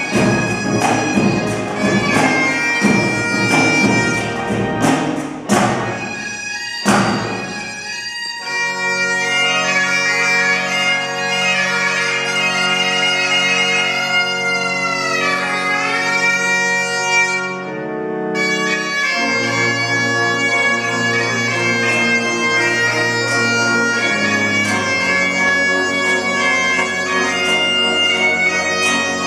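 Great Highland bagpipes playing a tune over their steady drones, with pipe-band snare drums and a bass drum beating for the first eight seconds or so. The drums then stop and the pipes carry on with the pipe organ holding sustained chords.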